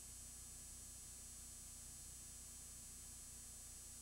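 Near silence: only a faint steady hum and hiss, with no program sound.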